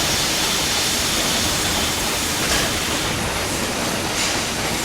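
Steady rushing noise, machine-like ambience, with no rhythm. Two faint clicks come partway through.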